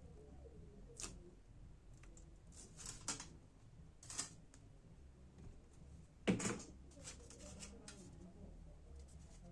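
Small, scattered clicks and taps of hands working on a laptop's keyboard parts and tape, with one louder knock about six seconds in.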